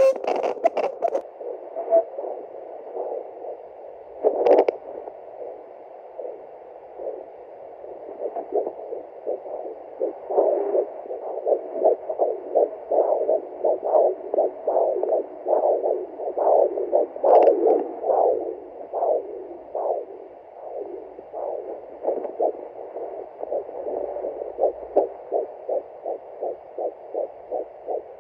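Hibebe home fetal doppler picking up a 10-week fetus's heartbeat through its small speaker: a steady whooshing static, with a rapid rhythmic pulse of about two to three beats a second that comes through clearly from about ten seconds in. There is a brief scrape of the probe about four seconds in.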